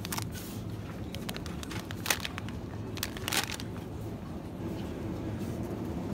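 Plastic pasta bag crinkling as it is taken off the shelf and dropped into a plastic shopping trolley: a few sharp crackles, the loudest about two and three seconds in, over a steady low hum of the shop.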